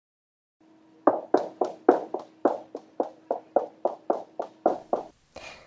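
A quick, even run of about sixteen short taps, roughly four a second, over a faint steady hum, starting about a second in and stopping near the end.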